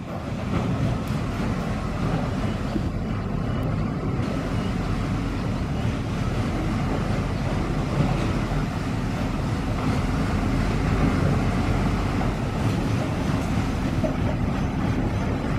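Diesel engine of a small Schöma narrow-gauge shunting locomotive running steadily, a low drone.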